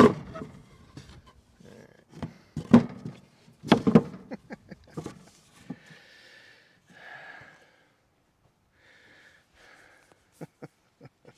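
Wooden beehive box parts knocking and clacking as they are handled and fitted together, in an irregular run of sharp knocks, loudest about three and four seconds in, with a few light taps near the end.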